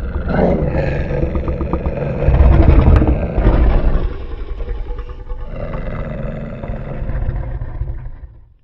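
Yutyrannus dinosaur roar sound effect: one long, deep roar that swells loudest about two to three seconds in, then eases off and fades out near the end.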